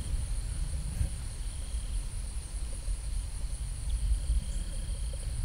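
Steady insect chorus from the pasture, a continuous high buzz without breaks, over a low rumble on the microphone.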